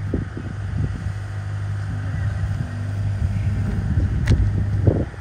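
An engine running steadily with a low hum, and a single sharp click a little over four seconds in.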